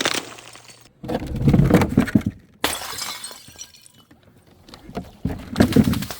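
Glass bottles smashing, several separate breaks one after another, each followed by shards tinkling and settling; some tails cut off abruptly.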